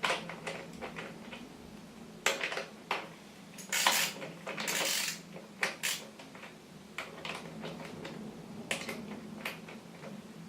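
Socket ratchet tightening a crank arm bolt onto a square-taper bottom bracket: irregular metallic clicks and clinks of the tool on the bolt, with two longer rasping runs of ratchet clicking about four and five seconds in.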